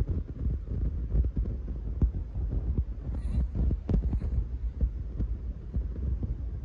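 Domestic cat purring close to the microphone: a low, steady throbbing. Soft, irregular rubbing noises come from fingers stroking its paw pads.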